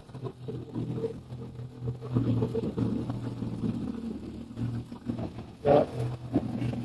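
Cordless reciprocating saw running and cutting through wood framing studs, a steady motor sound whose texture shifts as the blade bites. The jack studs at a door opening are being cut back because they were framed an inch and a half too long.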